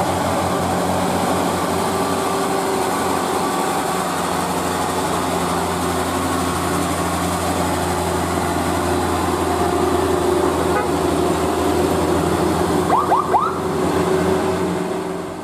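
Diesel engine of a sand-laden Mitsubishi Fuso Canter dump truck pulling hard uphill through a modified 'umplung' exhaust, a loud steady low drone. A few short high-pitched chirps cut in about 13 seconds in.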